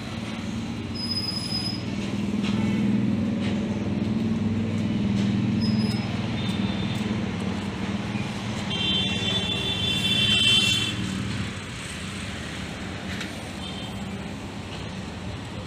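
A motor running with a steady low hum that fades away about eleven and a half seconds in, with a brief high-pitched tone a little before it fades.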